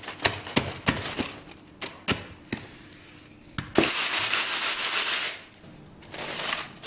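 A fired lump of glazing powder crumbles over a wooden-framed mesh sieve with a run of sharp clicks and taps as the ceramic beads drop free. Then the sieve is shaken, a steady hissing rattle of beads and grit on the wire mesh that lasts about a second and a half, and near the end hands rub the glazed beads against the mesh.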